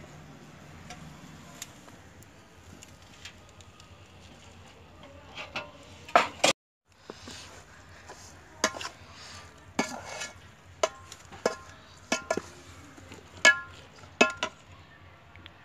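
A metal utensil knocking and scraping against a cooking pot, with sharp ringing clinks. There is a loud cluster about six seconds in and a short dead gap just after, then a clink about once a second.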